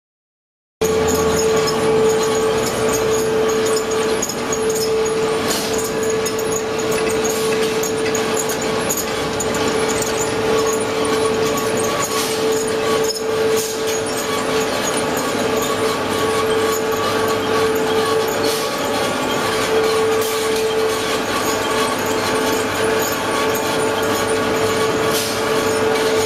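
Clay-brick production line machinery running: electric motors, belt conveyors and clay-processing machines give a loud, steady drone with a constant whine. The sound cuts in suddenly about a second in.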